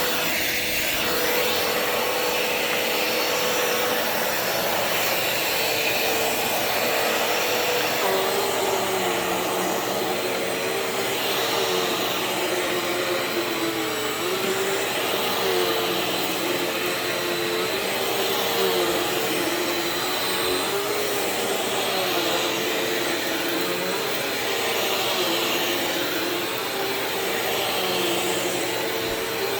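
Bissell CleanView Swivel Pet bagless upright vacuum running steadily on carpet, its motor hum dipping in pitch and recovering in a regular cycle about every two seconds.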